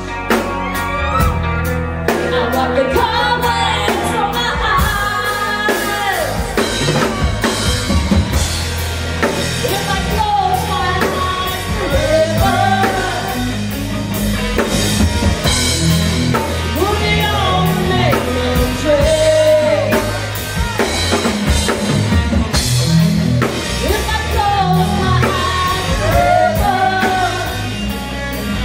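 Live rock band playing with electric guitar, bass and drums, while a woman and a man take turns singing lead.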